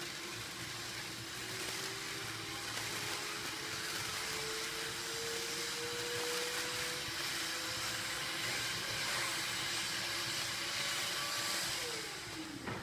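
GreenBlue GB161 bubble wrap machine running as it inflates and seals film: a steady airy hiss with a faint motor tone that slowly rises in pitch. Near the end the tone drops away quickly as the machine winds down.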